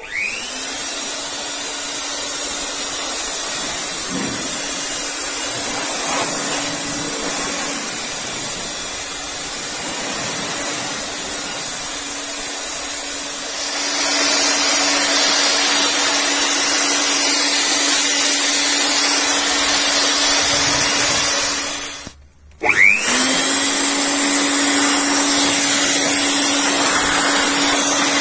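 JAKMISTER 600 W electric air blower running: its motor spins up with a rising whine, then runs with a steady hum and a rush of air, getting louder about halfway through. Near the end it stops for a moment and spins back up with another rising whine.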